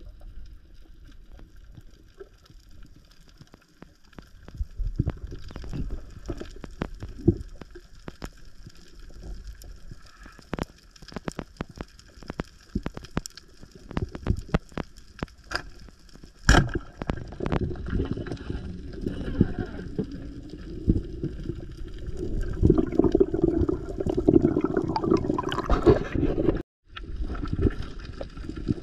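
Underwater sound of a speargun firing on a reef: scattered sharp clicks, then one loud sharp crack about halfway through as the shot is taken, followed by churning water sloshing and gurgling around the camera as the diver moves on the speared fish.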